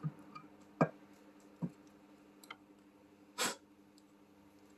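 Small screwdriver tip being twisted into the holes of a circuit board to widen them: a few light clicks about a second apart, then a short scrape about three and a half seconds in, over a faint steady hum.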